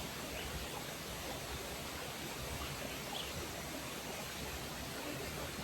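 Steady rushing of a river or waterfall, an even wash of running water with no change in level.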